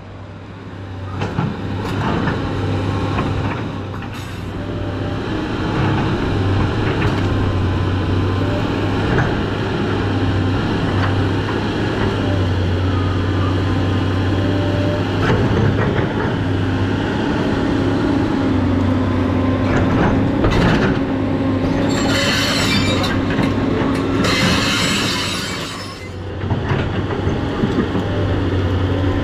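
SANY SY215C hydraulic excavator running under load, a steady low engine drone with wavering metallic whines over it. Two bursts of hissing come a little past two-thirds of the way through.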